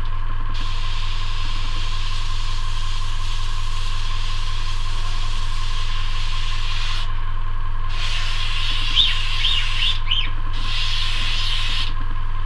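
Airbrush spraying into a paper towel during cleaning, in hissing bursts: one long spray of about six seconds, then two shorter ones with brief gaps. A steady low hum runs underneath.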